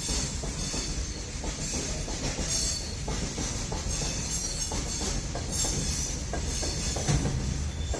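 Train rolling slowly along the track: a steady low rumble of the wheels with irregular clanks and knocks as they pass over the rails, and a faint high hiss.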